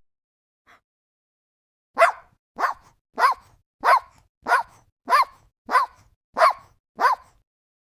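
A puppy barking nine times in a steady run, about 0.6 s apart, each bark short and high-pitched with a quick drop in pitch.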